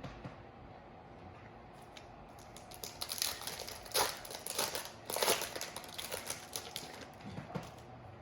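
Stiff chrome trading cards being handled and pried apart where they have stuck together, a run of crackling rustles and sharp clicks through the middle few seconds.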